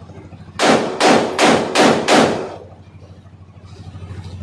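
Five shots from a Pakistani-made copy of an M4 carbine, fired in quick succession about two and a half shots a second, each with a short echo off the surrounding walls.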